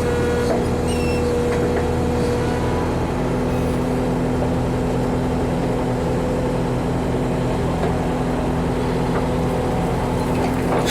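Backhoe's diesel engine running steadily at a constant speed.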